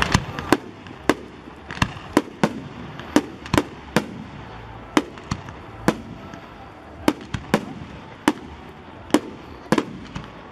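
Fireworks display: aerial shells bursting in sharp, irregular bangs, roughly two a second.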